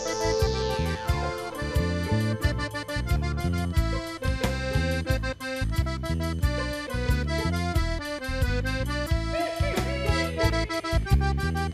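Upbeat theme music with a steady drum beat and a moving bass line. A whooshing sweep falls away in the first second or so.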